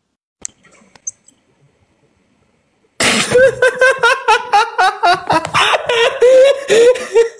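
A couple of faint clicks in near silence, then about three seconds in loud, high-pitched laughter breaks out and keeps going in short pulses.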